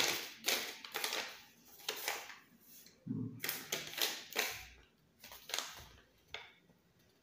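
Small folded paper leaflet being unfolded and handled, crinkling and rustling in irregular bursts that thin out and stop near the end.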